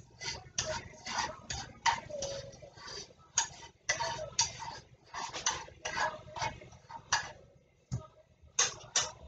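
A spoon scraping and clinking in a frying pan while stirring chopped mushrooms and onions, in irregular strokes about twice a second that stop near the end.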